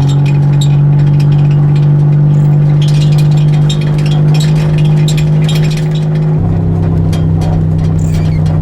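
1989 Toyota Camry's 2.5-litre V6 engine running with a steady note. The pitch drops to a lower, steady note about six seconds in, with light rattling over it.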